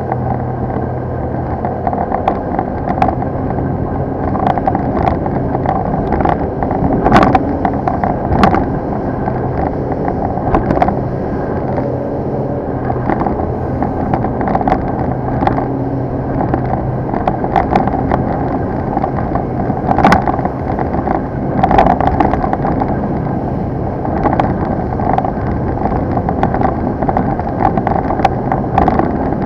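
Motorboat, likely powered by a Mercury Verado outboard, running at speed across choppy water: a steady engine drone under rushing wind and water. The hull slaps on the waves at irregular moments every second or two.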